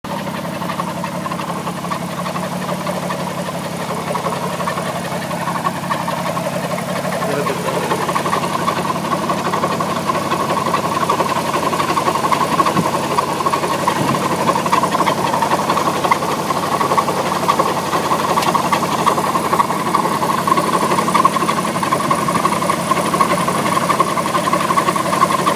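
Alfa Romeo 156 engine idling with a steady running note that grows somewhat louder over the first dozen seconds; the owner finds the sound bad and strange.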